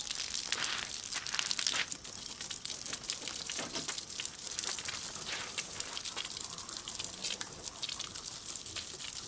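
Water running from a garden hose and splashing onto a car's body and the gravel beneath it: a steady spattering hiss.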